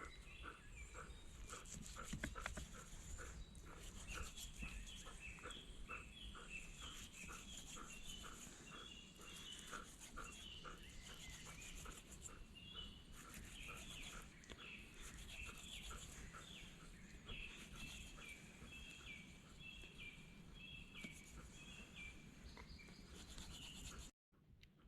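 Faint animal sound repeating about twice a second, with higher chirps over it, ending in an abrupt cut near the end.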